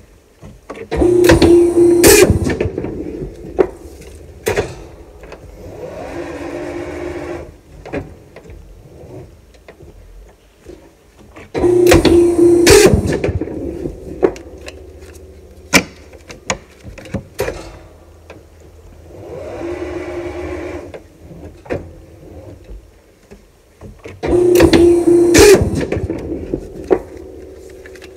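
Polar 66 guillotine paper cutter making three cuts through paper stacks about twelve seconds apart, each a loud burst of about a second and a half with a steady hum. A quieter whir comes between the cuts, with scattered clicks and knocks of the stacks being handled on the table.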